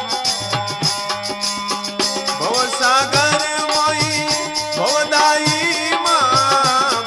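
Rajasthani devotional chirja song: a steady folk drum and rattle rhythm with a held drone, and a singer's voice entering about two and a half seconds in with long, wavering held notes.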